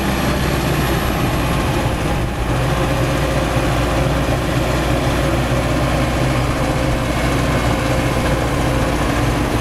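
CAT D5K2 XL crawler dozer's four-cylinder turbo diesel (Cat C4.4) running steadily under load as the dozer pushes dirt up a slope, with the deep, even engine note over a wash of track and machinery noise.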